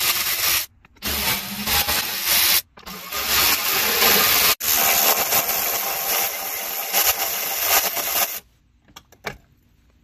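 Cordless ratchet running in four long bursts, backing out the jet pump mounting bolts; it stops about eight seconds in, and a few short clicks follow.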